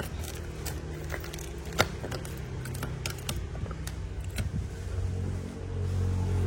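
Metal Zippo lighters clicking and clinking against each other as a pile of them is rummaged through, a scatter of sharp clicks with one louder knock a little under two seconds in, over a steady low hum.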